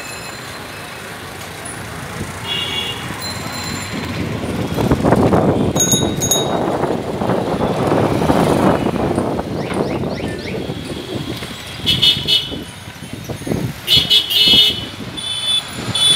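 Busy street traffic of auto-rickshaws, rickshaws and motorcycles. A motor vehicle's engine noise swells in the middle and fades, and short high-pitched horns toot several times in the second half.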